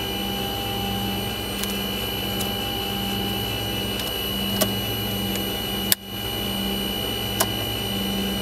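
Steady electrical hum of the Avro Vulcan's cockpit systems, with the engines not yet running: a low tone swelling about once a second under a thin high whine. Cockpit switches click three times, and the loudest click, about six seconds in, briefly cuts the hum out.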